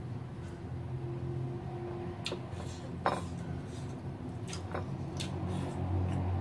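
Eating by hand from a ceramic plate: fingers gathering food across the plate and chewing, with a handful of short sharp clicks and smacks, over a steady low hum.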